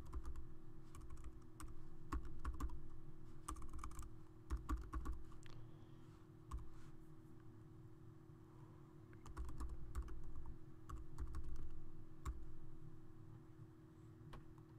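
Keystrokes on a computer keyboard, typed in irregular short runs with pauses, over a steady low hum.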